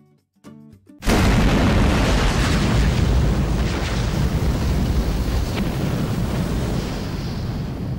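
Intro explosion sound effect: a sudden loud boom about a second in, followed by a long fiery rumble heavy in the low end that slowly dies away.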